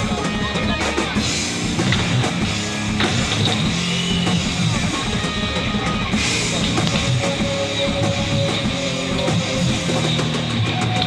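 Background rock music with a drum kit and guitar, playing steadily.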